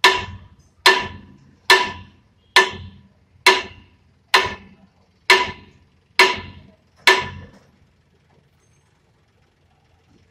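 Hammer striking metal at a truck's rear wheel hub during a tyre repair: nine evenly spaced blows, just under a second apart, each ringing and fading.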